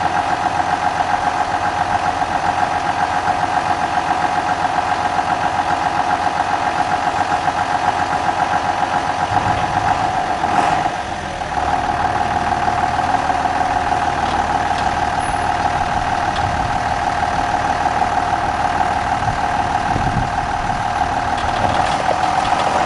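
Tractor engine running steadily at idle with a strong steady whine, as its tipping grain hopper is lowered after unloading. About ten seconds in the sound briefly changes, and after that it runs with more low rumble.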